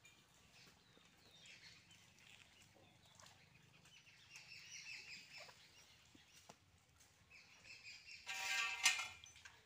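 Birds chirping and calling in the background, with one short, loud animal call near the end.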